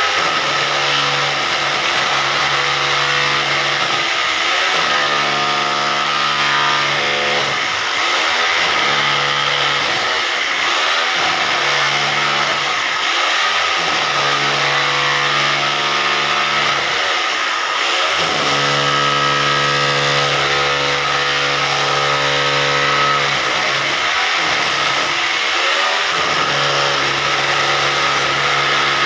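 Hammer drill running in repeated runs of a few seconds while cutting, its motor pitch steady during each run and sweeping up and down as it speeds up and slows between them.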